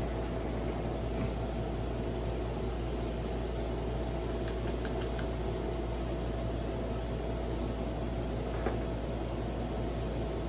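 Silkon UCC-52 ceiling fan running on low speed with a steady hum and a thin steady tone. A few light clicks come about four to five seconds in and one more near nine seconds. The bearings are sound, but something in the fan is vibrating, which the owner thinks is inside the switch housing.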